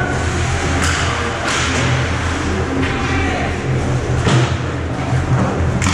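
Ice hockey play on an indoor rink: several sharp knocks of pucks and sticks against the boards and ice over a steady low hum and a faint murmur of voices.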